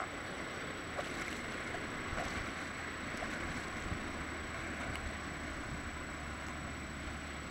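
Lake water splashing and sloshing as a swimmer swims off with arm strokes and then wades, with small splashes close to the microphone.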